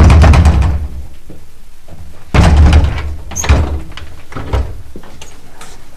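A fist banging on a panelled door in quick bursts of knocks, one at the start and another about two and a half seconds in, then two single knocks.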